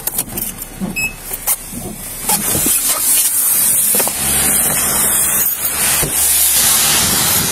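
A few clicks and knocks as someone climbs out of a patrol car, then from about two and a half seconds in a steady hiss of rain falling on a wet street.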